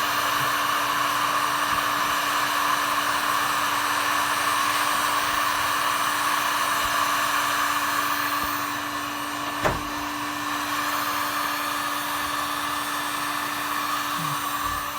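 Small electric blower motor running with a steady, hair-dryer-like whir and hum. A single sharp click comes about ten seconds in, and the motor runs slightly quieter from just before it.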